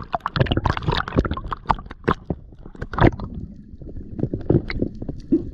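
Sea water sloshing and slapping at the surface around the camera, a rapid irregular run of splashes that thins out after about three and a half seconds.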